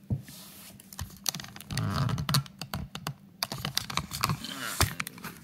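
Irregular clicks, taps and dull knocks of a phone being handled and picked up off a tabletop, with some rubbing in between.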